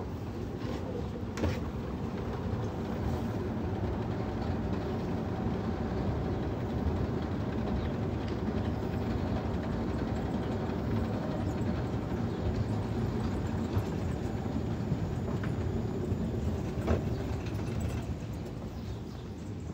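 Old outdoor escalator running, heard while riding it: a steady mechanical running noise from the moving steps and drive, with a few single sharp clicks.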